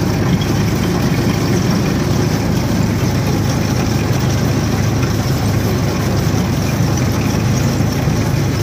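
Combine harvester running steadily, its engine and belt-driven pulleys turning at an even speed.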